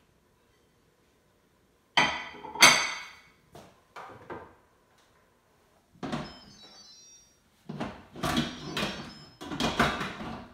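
A ceramic dinner plate clatters down twice, ringing, about two seconds in. From about six seconds, an Instant Pot lid is set on the pot and twisted shut: a run of clunks and scrapes against the rim.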